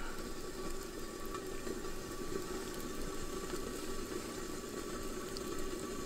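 Water boiling in a lidded metal pot over a campfire, a steady, even sound.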